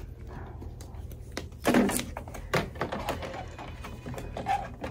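Plastic knocks, clicks and light scraping as a HEPA filter is handled and fitted into a Dyson air purifier. The loudest knock comes a little under two seconds in, with another at about two and a half seconds.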